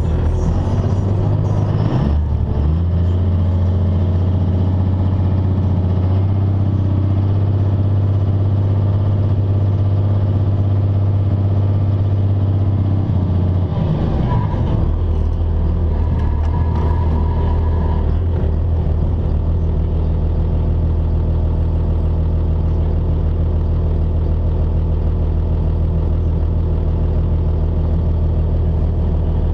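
Dodge Ram 2500's 5.9-litre 24-valve Cummins inline-six turbodiesel running steadily, heard from inside the cab; its note shifts about two seconds in and again about fourteen seconds in.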